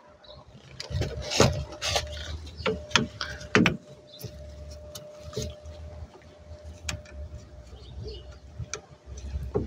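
Irregular light clicks and knocks of metal parts being handled as a new rear brake wheel cylinder is pushed into place against a drum brake backing plate and shoes, with a faint steady hum in the background.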